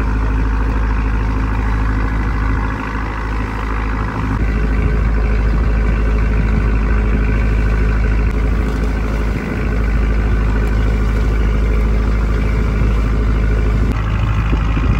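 Fishing boat's inboard engine running steadily at a constant pitch, with a slight change in its tone about four seconds in.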